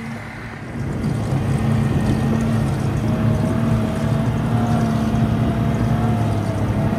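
Snowmobile engine running under way along a snow trail, a steady drone that grows louder about a second in, with a higher wavering whine joining about three seconds in.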